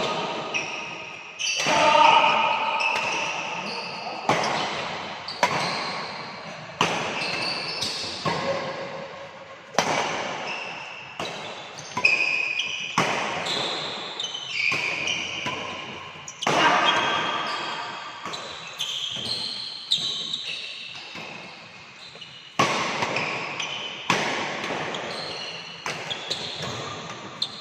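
Badminton rally: a Li-Ning Windstorm 72 racket and the opponent's racket striking a shuttlecock, a sharp hit about every second or second and a half, each one echoing away.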